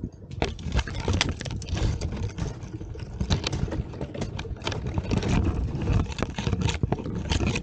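Uneven low rumble on the microphone with many irregular sharp clicks and knocks, the sound of climbing gear being handled at the foot of an ice climb.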